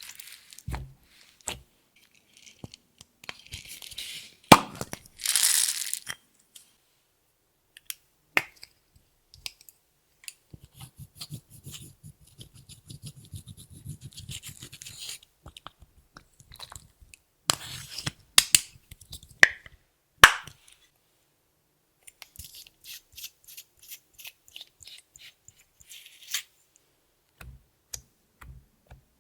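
Hands kneading and stretching clear slime with makeup and glitter mixed in: irregular sticky clicks, crackles and squelching pops. There is a louder hissing squish about five seconds in and a run of sharp pops near the middle.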